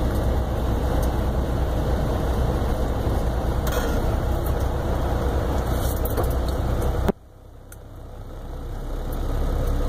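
Semi-truck diesel engine running low and steady, heard from inside the cab in crawling traffic. About seven seconds in the sound drops away suddenly, then slowly builds back up.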